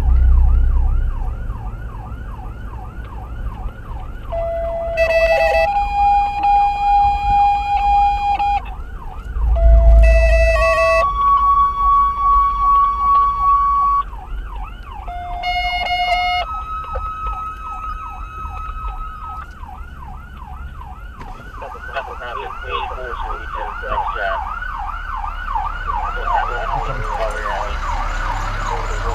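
Emergency vehicle siren in a fast rising-and-falling yelp, about three sweeps a second. It is broken three times by long steady horn-like tones, each starting with a short lower note and then holding a higher one, with low vehicle rumble underneath.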